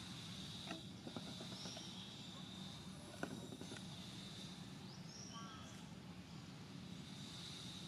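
Quiet outdoor ambience: a steady high insect drone, with a few short bird chirps and scattered faint clicks.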